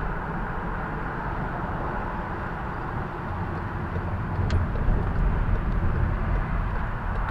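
Volkswagen Passat VR6 with a Borla exhaust driving, its engine and exhaust note mixed with road noise; the low exhaust drone grows louder about halfway through.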